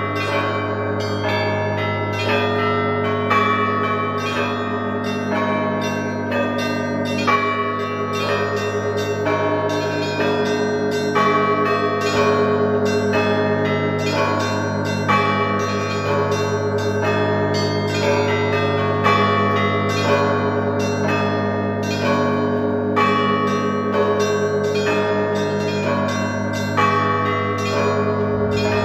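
Orthodox monastery bells ringing a full peal: smaller bells chime in a quick, repeating pattern over the steady hum of a large bell, with a heavier stroke about every four seconds.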